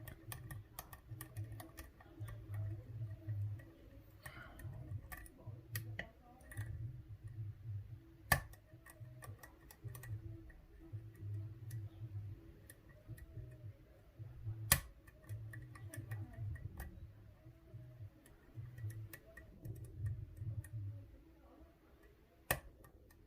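Lock pick and tension wrench working the pins of a Medeco D11 biaxial euro cylinder: a run of small metallic clicks as pins are lifted and rotated, with three sharper clicks. A faint low bass beat pulses underneath.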